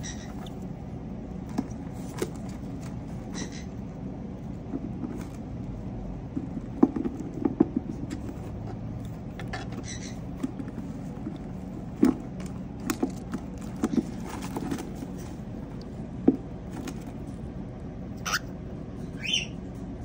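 Cockatiels moving about on the wood-shaving bedding of a nest box: scattered light scratches, clicks and knocks. A few short high chirps are heard, two of them near the end.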